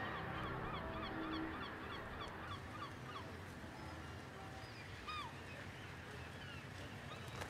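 A flock of birds calling, many short gliding call notes overlapping, dense at first and thinning out after about three seconds, over a low steady background rumble.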